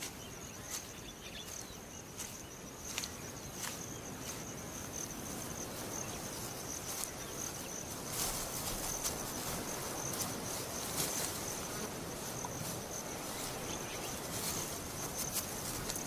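Insect chorus trilling steadily at one high pitch, with scattered short clicks; it grows a little louder about halfway through.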